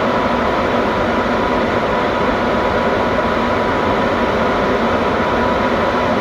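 Train running close by: a steady, loud rush of noise with a thin constant whine through it.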